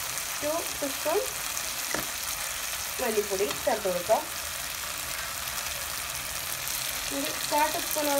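Onion-and-tomato masala sizzling steadily in a nonstick frying pan, with one sharp knock about two seconds in. Short bits of a background voice come in three times.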